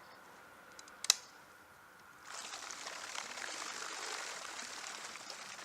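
A sharp click about a second in, then from about two seconds in a steady rush of churning, splashing water.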